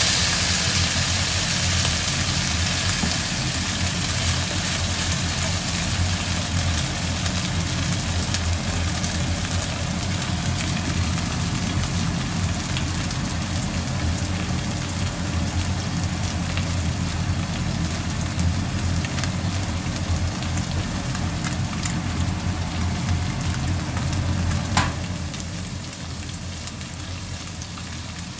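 Okonomiyaki sizzling in hot oil in a non-stick frying pan, a steady crackling hiss. About 25 seconds in there is a sharp click, after which the sizzle is quieter.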